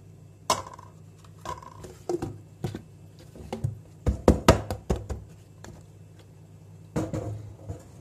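Hands handling plastic kitchen containers, a big yogurt tub and a lidded plastic jug, giving a run of sharp knocks and clicks. The knocks come thickest about halfway through, as the tub's lid is pressed down, and there is a steady low hum underneath.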